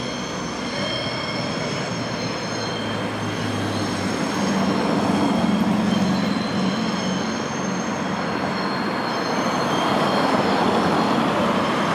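Two coupled Class 220 Voyager diesel-electric trains pulling out, their wheels squealing on the curved track with several steady high-pitched tones over a rumble. Cars pass close by on the road, loudest around the middle and near the end.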